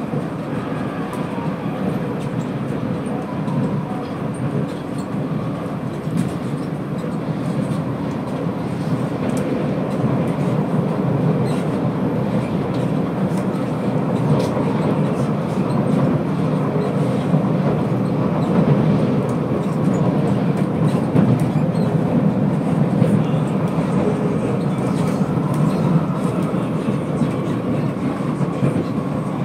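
C751B electric metro train running at speed, heard from inside the car: a steady rumble of wheels on rail with a few faint steady tones and scattered light clicks from the track. It grows a little louder through the middle.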